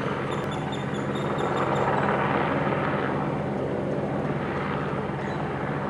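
Helicopter hovering overhead: a steady drone of rotor and engine that swells slightly about two seconds in.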